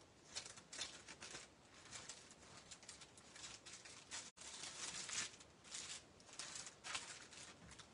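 Plastic embellishment packets rustling and scraping against a clear plastic storage box as they are flipped through by hand, in short irregular bursts of rustle.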